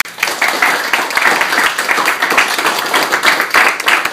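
Small audience applauding: many hands clapping in a dense, uneven patter that breaks out suddenly at the start and keeps going.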